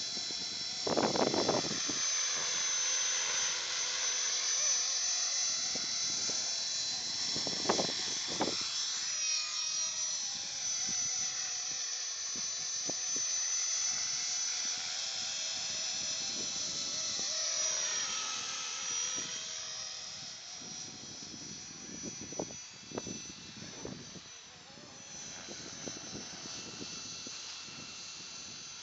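Radio-controlled model helicopter in flight: a high-pitched whine from its motor and rotors that sags and recovers in pitch twice as it manoeuvres, then grows fainter near the end as it flies off. Two brief bumps or gusts on the microphone about a second in and around eight seconds.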